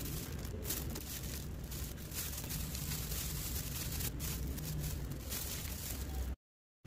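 Crinkling and rustling of thin plastic as gloved hands handle chocolate bombs in a clear plastic egg tray, in irregular crackles over a steady low hum. It cuts off suddenly near the end.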